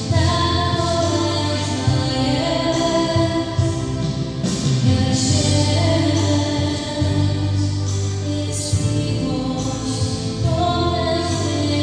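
Slow church wedding song: voices singing long held notes over sustained accompanying chords and a low bass line.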